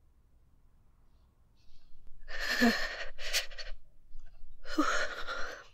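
A woman's breathy sighs: a long sigh about two seconds in, a quick sharp breath in right after it, then another long sigh near the end.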